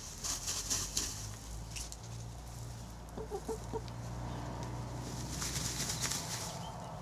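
Hens dust bathing: dry soil being scattered and wings shuffling through the dirt come in two hissing spells, near the start and again about five seconds in. A few soft clucks come between them, around three seconds in.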